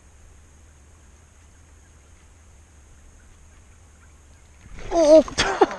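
Faint low rumble, then near the end a man's loud, wavering whoop of excitement as a fish takes the lure, with a sharp crack in the middle of it.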